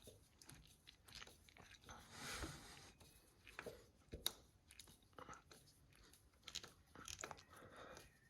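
Faint, irregular clicks and scrapes of a screwdriver being turned by hand, driving a screw into a motorcycle frame guard's expanding insert, with one sharper click about four seconds in.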